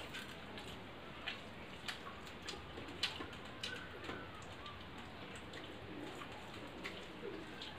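Eating by hand from steel plates: scattered light clicks and scrapes of fingers and rice against the metal, over a steady background hiss.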